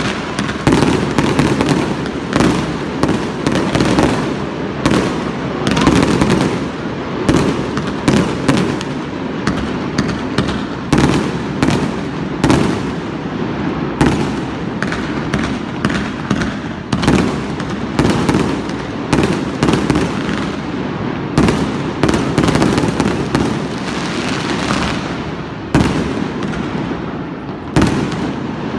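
New Year fireworks display: a dense, unbroken run of bangs and crackles, several reports a second over a constant rumble, with no pauses.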